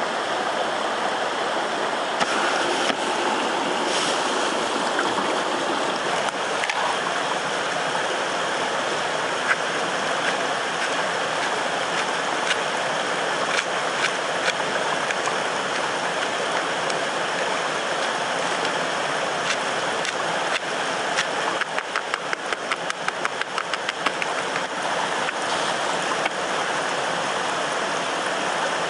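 Steady rushing of a mountain stream, with scattered sharp clicks and a quick run of clicks about three-quarters of the way through.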